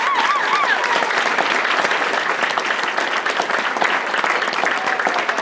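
Audience applauding steadily. In the first second the last held, wavering sung note of the dance music fades out under the clapping.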